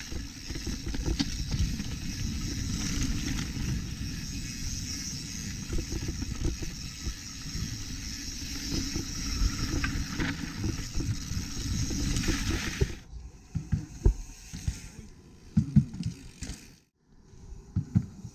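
Mountain bike being ridden on a dirt trail: a steady rushing noise of wind and tyres that drops off suddenly about thirteen seconds in, leaving scattered knocks and rattles of the bike over the ground.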